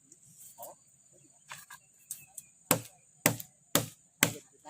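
A series of sharp chopping blows, about two a second, beginning about two and a half seconds in. Insects keep up a steady high buzz throughout.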